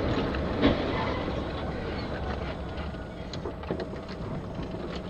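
Steady engine and tyre rumble of a vehicle driving on a wet road, with a loud bang just under a second in, the sound of a nearby car crashing.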